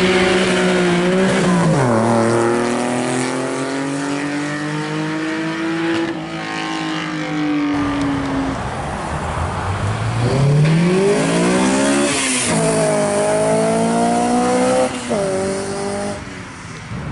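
Loud performance-car exhausts under hard acceleration. In the first run the engine note drops at a shift, climbs slowly and then falls away. After a break a second run revs up steeply, with two sudden drops at upshifts before it fades.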